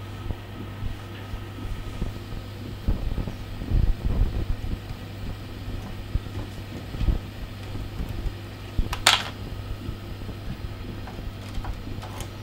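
Hands fitting a flat cable feed-through strip to a door frame: scattered low knocks and thumps, one short sharp scrape about nine seconds in, and a few small clicks, over a steady low hum.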